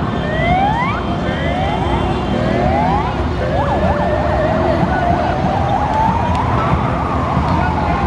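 An emergency vehicle's siren sounds over steady city traffic noise. It gives a series of short rising whoops, switches to a rapid yelp a little past three seconds in, and then turns to a slow wail that rises and falls again near the end.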